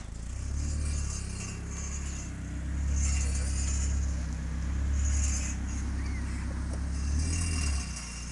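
Car engine running on hydrogen gas fed into its intake, with the petrol fuel injectors disconnected. Its level swells and eases a few times, with intermittent high hissing over the steady low hum.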